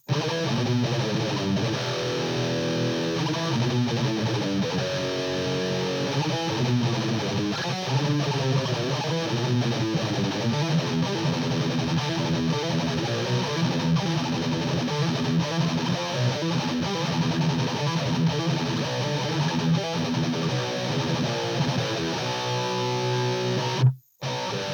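Jackson King V electric guitar playing distorted riffs through a guitar amp, miked at the cab. It cuts off abruptly near the end.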